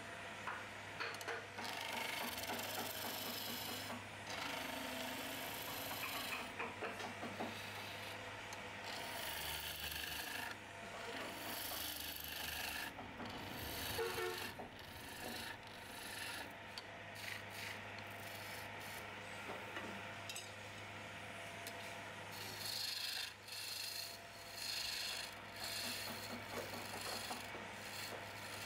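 Hand-held turning chisels cutting a spinning wooden table leg on a wood lathe: steel scraping and shaving the wood, swelling and dipping in loudness as each cut is made, over a steady low hum.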